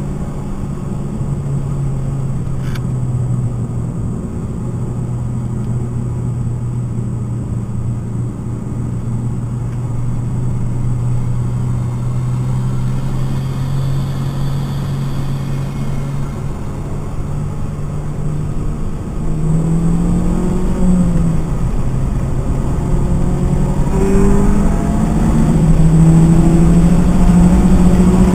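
In-cabin sound of a stock 2012 Mitsubishi Lancer ES's four-cylinder engine lapping a racetrack. The engine note holds steady through the corners, then from about two-thirds through it climbs in pitch several times as the car accelerates hard. Road and tyre noise grows louder over the climbs.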